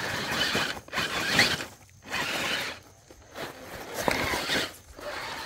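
Electric RC rock crawler's motor and geartrain whining in several short throttle bursts with brief pauses, as the truck climbs over rock.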